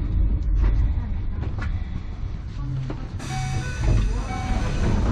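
Enoshima Electric Railway (Enoden) train running, heard from inside the car: a steady low rumble of wheels on the track with scattered clicks and knocks. About three seconds in, a brighter hiss with a few short high tones joins it.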